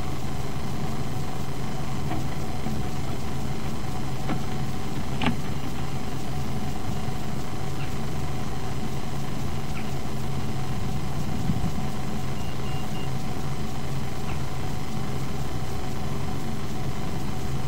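Steady low mechanical hum, even and unchanging, with a few faint ticks about two, four and five seconds in and a brief high peep a little past the middle.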